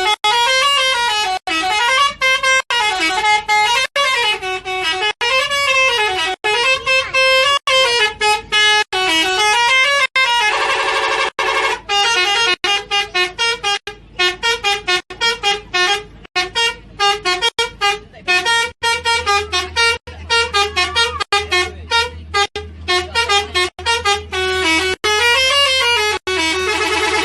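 Telolet bus horn, a multi-tone musical horn, playing a melody: the tones slide up and down about once a second for roughly the first ten seconds, then break into rapid short notes with sudden stops. A low steady hum joins about two-thirds of the way through.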